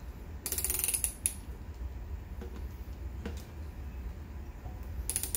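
Hand ratchet clicking in two quick runs, one about half a second in and another near the end, as it tightens the bolts on the air compressor's cylinder head.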